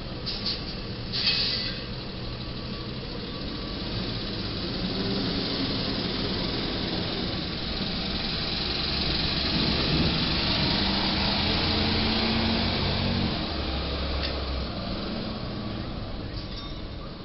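Ryder rental box truck driving past, its engine and tyre noise swelling as it draws near, loudest about ten seconds in, then fading. A couple of short sharp clicks near the start.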